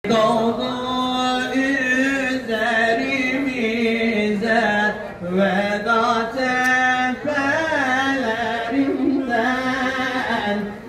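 A man chanting an Islamic devotional song into a microphone, solo and unaccompanied, in long held notes with a wavering, ornamented melody and brief pauses for breath.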